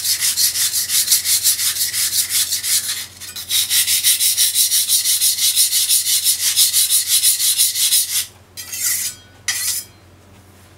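Steel kitchen knife blade, a small bunka knife, being sharpened on a wet whetstone: quick, even back-and-forth scraping strokes, several a second. The strokes break briefly about three seconds in and stop near the end after two short last strokes.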